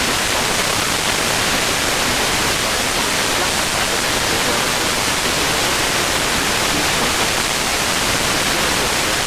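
Steady hiss of FM radio static from a receiver tuned to a weather radio frequency with no usable signal coming through.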